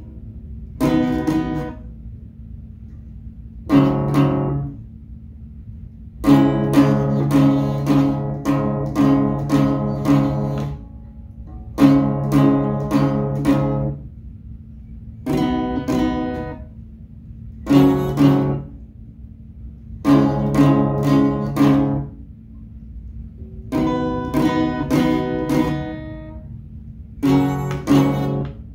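Acoustic guitar played slowly in short phrases of a few strokes each, several strings sounding together, with pauses of a second or two between the phrases.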